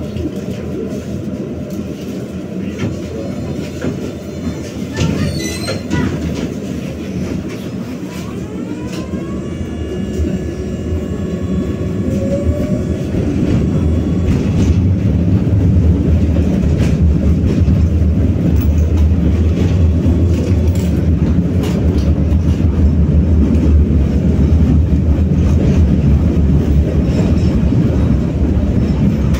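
BKM-60102 tram pulling away: a whine from its electric traction drive rises in pitch about nine seconds in, then the running noise of the wheels on the rails grows louder and holds steady.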